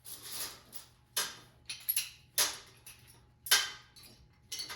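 Metal clamps clinking against steel rod mounts as they are hung one after another: about five sharp metallic clinks with short ringing tails, over a faint steady hum.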